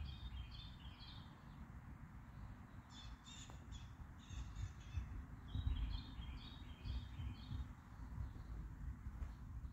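A bird calling outdoors in three bouts of quick, repeated short high notes, about three seconds in and again around the middle. A low rumble runs underneath and swells briefly near the middle.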